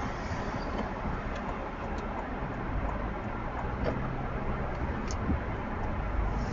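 Steady road and driving noise of a moving car, with a few faint, irregular light clicks over it.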